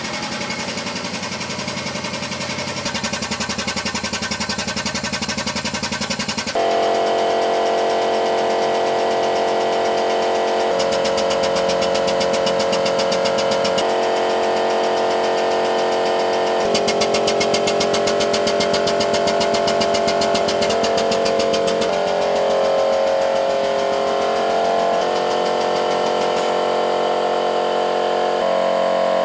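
Powered weighing jack running under load as it lifts the front of a tractor: a steady, rapidly pulsing mechanical run with held tones that shift in pitch several times, getting louder about six seconds in.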